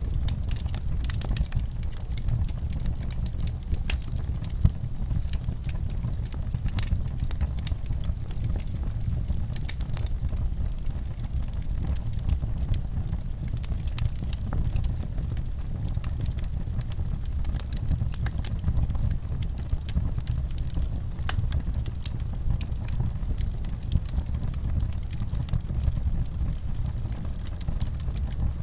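Wood fire burning in a fireplace: a steady low rumble of flames with many small, irregular crackles and pops.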